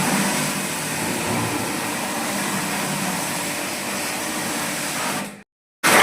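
Electric jet-pump pressure washer running steadily with its water spray hissing, used to wet down a washing machine during cleaning. The noise drops out for a moment near the end, then returns.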